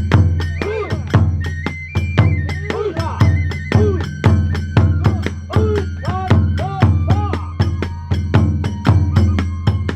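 Kagura hayashi ensemble playing: taiko drums beat a quick, steady rhythm while a bamboo flute plays a stepping melody above them.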